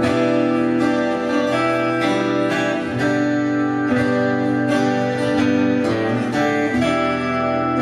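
Three acoustic guitars playing together live, strumming chords that ring on under picked notes, with no singing.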